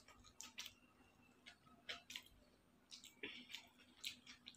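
Faint, wet mouth clicks of someone chewing a mouthful of noodles, coming irregularly a few times a second, with a slightly longer smack a little after the three-second mark.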